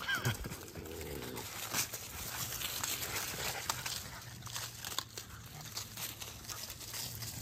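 Puppies play-fighting on dry fallen leaves: a brief dog vocalisation in the first second, then dry leaves rustling and crackling under their paws and bodies, over a low steady hum.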